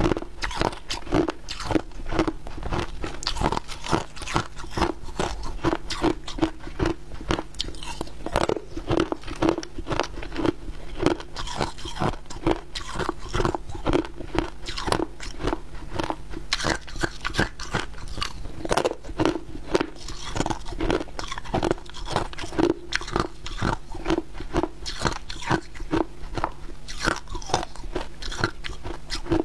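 Hard ice discs being bitten and chewed: rapid, continuous crunching as the ice breaks between the teeth.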